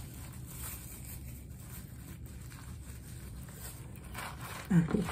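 Light rustling of a thin plastic bib as it is tied on at the neck, over a steady low room hum. A short vocal sound comes near the end.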